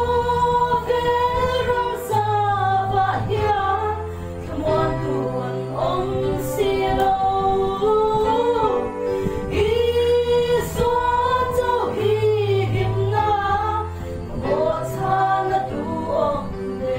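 Three women singing a song together in harmony through microphones, over sustained low accompaniment notes that change every couple of seconds.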